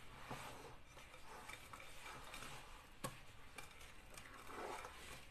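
Wire whisk stirring thick chocolate brownie batter in a glass bowl: faint, soft mixing with light ticks and one sharper click about three seconds in.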